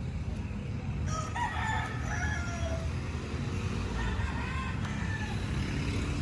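A drawn-out bird call lasting about two seconds, starting about a second in, over a steady low rumble.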